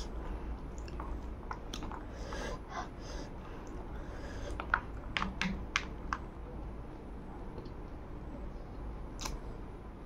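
Close-up chewing and wet mouth sounds of someone eating rice and curry by hand, with scattered short smacks and clicks, several close together a little past the middle.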